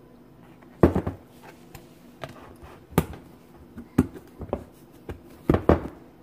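A plastic lid being pressed and snapped onto a glass bowl on a countertop: a string of separate sharp knocks and clicks, the loudest about a second in and again near the end.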